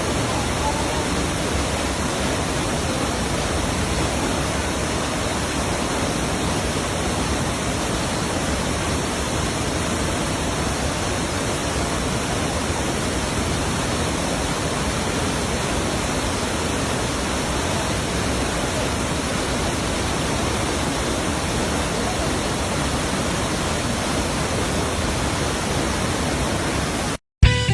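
Waterfall: a steady, even rush of falling water that cuts off abruptly near the end.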